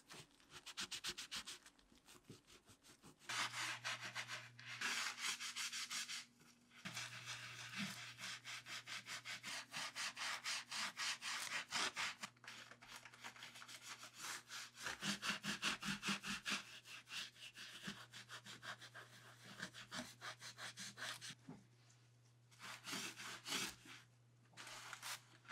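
A gloved hand scrubbing liquid laundry detergent over the carved surface of a linoleum block to clean off the ink: a faint, rapid back-and-forth rubbing that stops briefly a few times. A steady low hum runs underneath.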